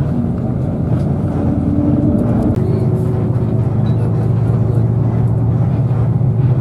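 Hino RK8 bus's diesel engine running under way, heard from inside the cabin along with road noise. Its note steps up about two and a half seconds in and then holds steady.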